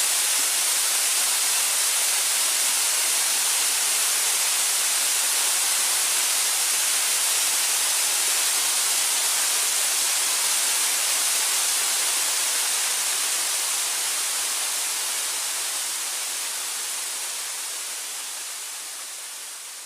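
Waterfall water pouring with a steady hiss, slowly fading out over the last several seconds.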